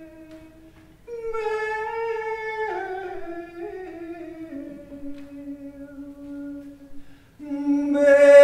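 A single voice singing wordlessly in long held notes that step down in pitch over several seconds. After a short break, a louder held note starts near the end.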